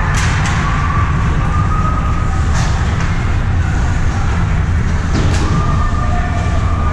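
Ice rink sounds during a hockey game: a steady low rumble with a few sharp clacks and a faint wavering whine.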